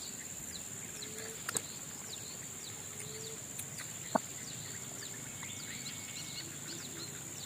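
Tropical forest-swamp ambience: a steady high-pitched insect drone, with short bird chirps scattered throughout. A single sharp click comes a little past halfway.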